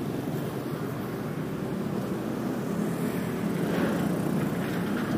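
Steady street traffic noise, a low, even rumble of passing vehicles.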